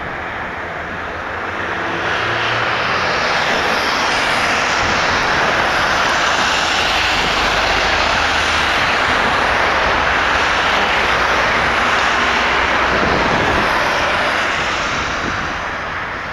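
Fixed-wing aircraft's engines passing, a loud steady noise that swells in over the first couple of seconds, holds, then fades toward the end.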